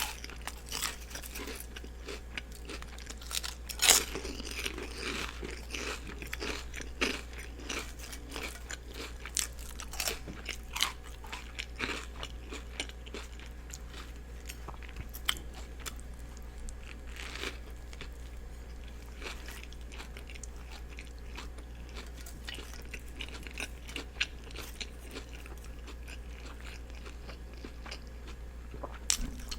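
Close-miked biting and chewing of a turkey and cheese sub with lettuce and onions: irregular wet, crisp mouth sounds, with the loudest bite about 4 seconds in. A steady low hum runs underneath.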